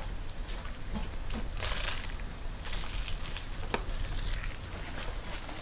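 Steady hiss of rain falling, with a brief louder rustling burst about two seconds in.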